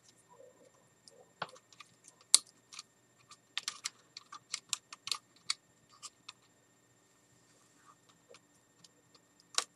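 Irregular small, sharp clicks and taps of fingers handling and pushing tiny plastic wire connector plugs into their sockets on a DJI Phantom 3 Professional's ESC center board. One loud click comes about two and a half seconds in, a quick run of clicks follows, and the clicks thin out and grow fainter toward the end.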